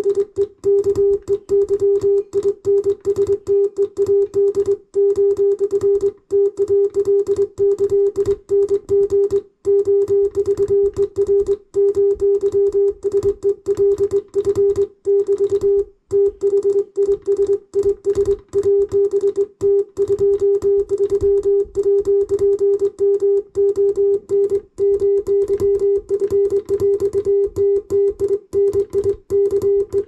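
Morse code sidetone from hand sending on a Frattini straight key at about 23 words per minute: a single-pitched beep keyed on and off in a steady stream of dots and dashes.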